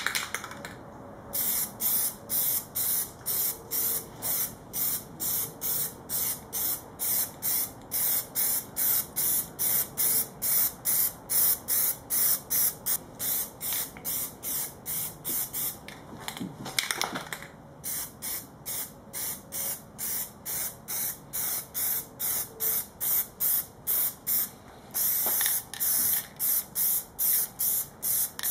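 Aerosol can of Plasti Dip rubber coating spraying in short, quick bursts, about two a second, with a couple of brief pauses. This is a thin first coat being laid on.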